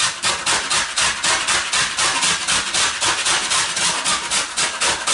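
Fresh horseradish root grated on a metal box grater: rapid, even scraping strokes, about five a second.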